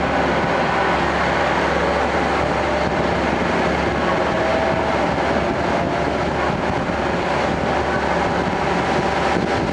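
Tenryu Hamanako Railway TH3501 diesel railcar running along the line, heard inside the passenger cabin: a steady engine drone mixed with wheel and rail noise.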